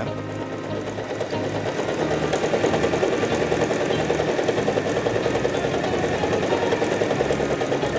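Usha Janome Allure DLX electric sewing machine running steadily under foot-pedal control, its needle going up and down rapidly as it sews a decorative stitch pattern. It gets a little louder over the first couple of seconds.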